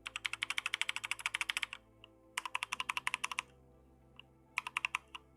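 Fast typing on a mechanical keyboard fitted with new keycaps: three quick runs of key clacks, the first the longest, with a single keystroke or two between runs.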